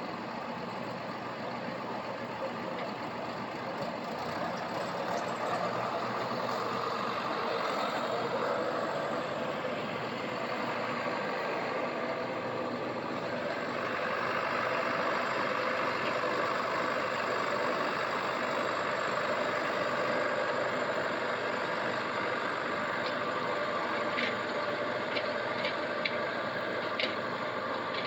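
Tractor-driven corn harvest machinery running steadily, growing louder about halfway through. A few short sharp knocks come near the end.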